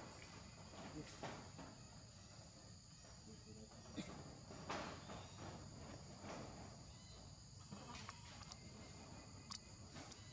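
Faint, steady high-pitched drone of insects chirring in the background, with a few brief clicks and rustles.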